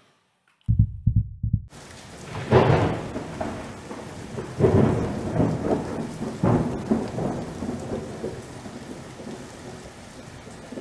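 Thunder rumbling over steady rain. After a brief silence a low rumble starts under a second in, the rain hiss comes in at about two seconds, and several rolls of thunder swell and die away, the whole growing quieter toward the end.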